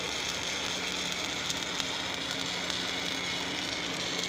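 Stick (shielded metal arc) welding with a 7018 electrode: the arc crackling and sizzling steadily as the capping pass is laid on a pipe joint, with a steady low hum underneath.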